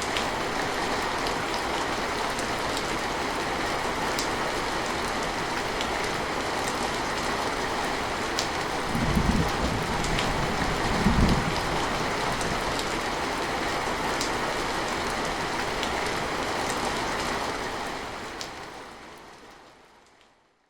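Steady rain falling on a surface, with scattered individual drop ticks. Two brief low rumbles come about nine and eleven seconds in, and the rain fades out near the end.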